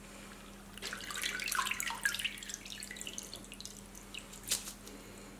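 Water splashing and trickling back into a bowl as a stainless steel mesh strainer of chicken wings is lifted out to drain, starting about a second in and thinning to drips, with one sharp tick near the end.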